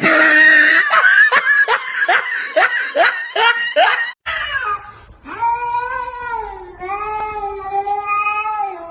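A cat yowling: a run of short, quick, falling calls for about four seconds, then after a brief pause one long, wavering yowl.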